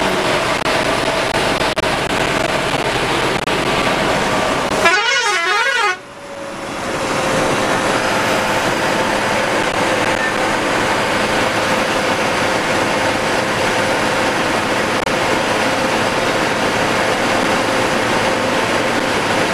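Ashok Leyland coach's engine and road noise, heard from the driver's cabin at speed, running steadily. About five seconds in, a horn sounds briefly with a pitch that wavers up and down, and then the sound briefly dips.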